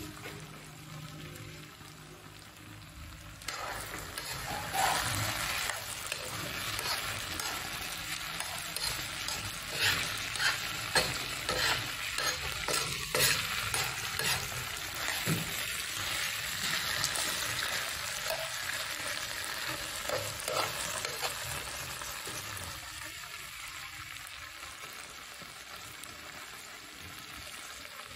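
Beef pieces sizzling in oil on a tawa (flat iron griddle), a steady frying hiss. A few seconds in, a spatula starts stirring and scraping the meat across the tawa with many sharp clacks, stopping about three-quarters of the way through, leaving the sizzle alone.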